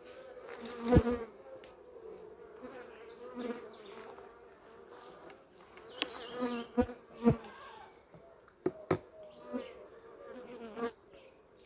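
Honey bees buzzing around an open hive, the pitch wavering as they fly close past. Several sharp knocks sound over it, and a high hiss comes twice.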